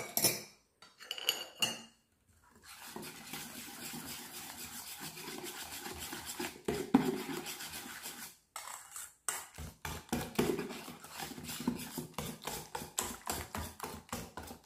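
Wire balloon whisk beating a thin spinach, egg and milk batter in a stainless steel bowl, the wires clinking and scraping against the metal. A few metal clinks in the first two seconds, then fast steady whisking that turns into separate strokes, about three a second, in the second half.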